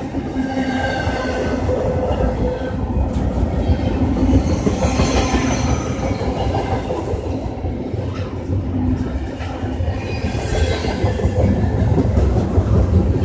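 A train running along the track, a loud steady rumble of wheels on rails.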